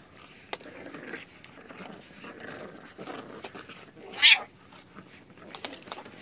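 English bulldog puppies tussling over a toy, with low snuffling sounds and one short, high-pitched yelp about four seconds in.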